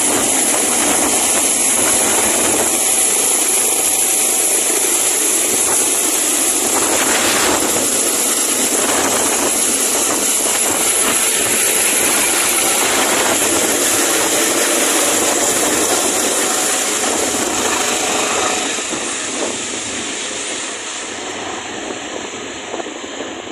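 Airbus H145 twin-turbine helicopter lifting off and climbing away: its turbine whine and rotor noise, loud and steady, then fading over the last few seconds as it flies off.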